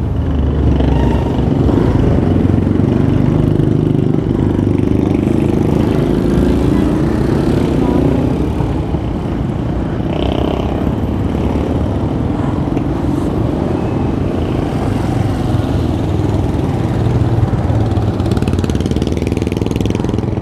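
Street traffic heard from a moving bicycle: motorcycle and tricycle engines running close by over a steady low rumble. One engine's hum drifts in pitch through the first several seconds.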